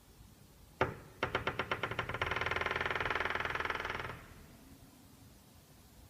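A newly installed Bodyguard 5/2 entrance door creaking as it is moved. A click comes first, then ticks that quicken and run together into a steady pitched creak of about two seconds, which stops suddenly. The creak is already there four days after installation.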